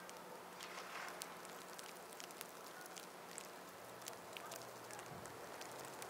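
Faint, irregular crackling and ticking of falling snow striking the microphone in a snowstorm, over a soft steady hiss.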